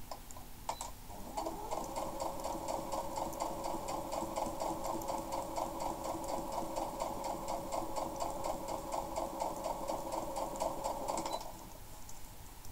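Electric sewing machine stitching fabric. After a couple of clicks it speeds up over a moment into a fast, even run of needle strokes, keeps going for about ten seconds, and stops abruptly near the end.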